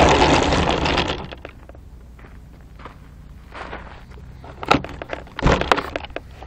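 RC glider's motor and propeller spinning down, the sound dying away over about the first second and a half. A few scattered knocks and thumps follow, the loudest two near the end.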